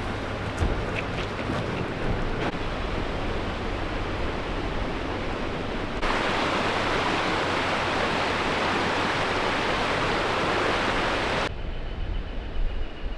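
Diesel truck engine idling low while it tows a shed on skids, under a steady rushing noise that turns abruptly louder from about six seconds in until near the end. There are a few knocks in the first couple of seconds.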